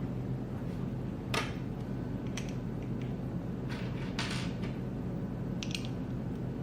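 Scattered small clicks and scrapes of hand-assembly work, screwing motor mounts onto a quadcopter frame, over a steady low hum.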